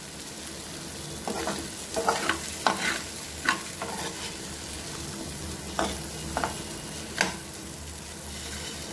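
A metal spoon stirring diced, spiced potatoes in a frying pan, scraping and knocking the pan about ten times over a steady low sizzle. The scrapes stop after about seven seconds in.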